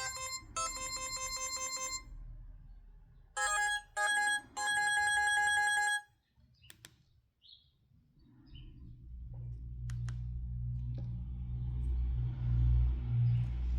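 LG MG180 mobile phone playing a beeping electronic ringtone through its small speaker: two phrases of fast repeated tones that cut off suddenly about six seconds in. After that come a few clicks and a low rumble.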